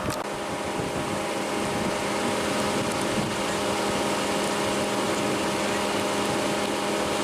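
Steady mechanical hum of a stationary vehicle, with an even hiss over it and a single brief click at the very start.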